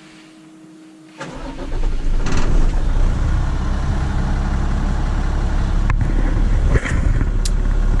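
A loaded grain truck's engine is cranked and catches about a second in, then runs steadily at idle, heard from inside the cab. Before it fires, a thin steady tone sounds.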